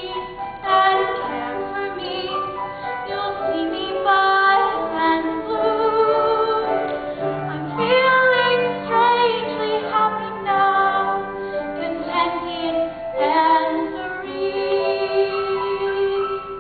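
A woman singing a slow ballad, her held notes wavering with vibrato, over sustained instrumental accompaniment.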